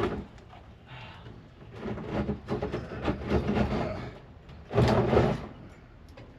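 Irregular knocks, scrapes and clunks of parts and materials being handled during the install, with the loudest clunk about five seconds in.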